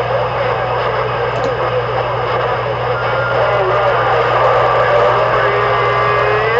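CB radio receiver hissing with static, with garbled, unintelligible voices under it and a steady low hum. Near the end a whistling tone comes in and slides up slightly.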